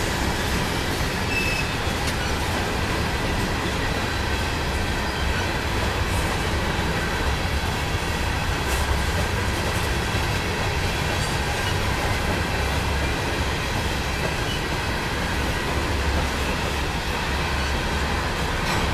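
Loaded covered hopper cars of a freight train rolling by at speed: a steady rumble of steel wheels on the rails, with a thin high squeal from the wheel flanges on the curve.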